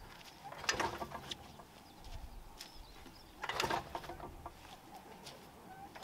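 Pobjoy Niagara radial engine being turned over by hand as the propeller is pulled through before starting. There are two short bursts of mechanical clatter, about three seconds apart.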